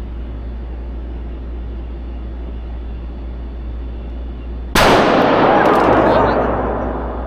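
A single handgun shot about two-thirds of the way in, with a sharp onset and a ringing echo that fades over about two seconds, over a steady low hum.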